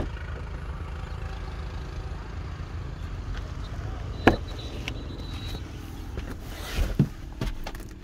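Tata Altroz car door being opened: a sharp click of the handle and latch about four seconds in, then a thud near the end, over a steady low rumble of wind on the microphone.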